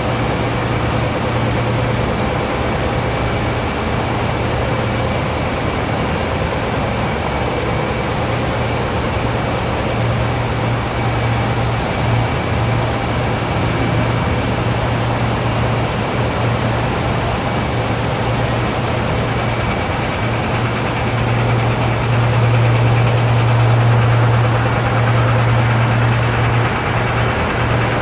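Diaper production line running: a steady, loud mechanical drone of the machinery with a strong low hum, swelling a little for a few seconds near the end.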